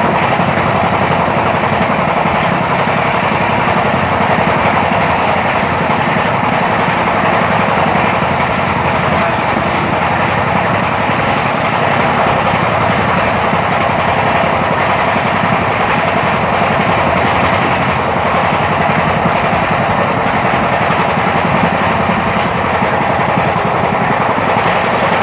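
Passenger train running at speed, heard from an open coach window: a steady, unbroken rumble of wheels on the rails mixed with rushing air.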